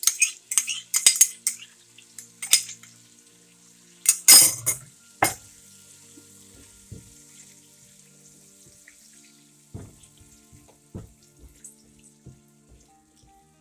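Yogurt sizzling in hot oil in a nonstick wok with green chillies as it is stirred in with a silicone spatula. There are quick scrapes and taps of the spatula on the pan, loudest about four seconds in, and then the sizzle dies down to a soft hiss.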